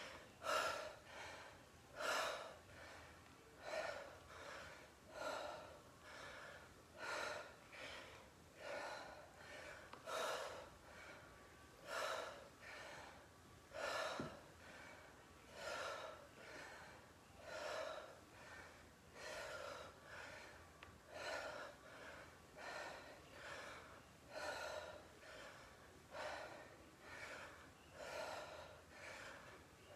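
A woman breathing hard and rhythmically while doing weighted squat-and-twist reps: short, forceful breaths, roughly one a second, in an even rhythm.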